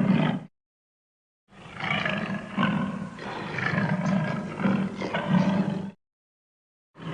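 Lion roar sound effects: one roar cuts off about half a second in, then after a second of dead silence comes a long, low roar of about four seconds that swells several times. Another roar starts at the very end.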